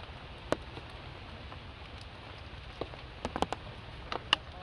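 Raindrops pattering on leaves and wet rock after a rain shower: a steady hiss with a few sharp, louder drops about half a second in and a cluster of them in the last two seconds.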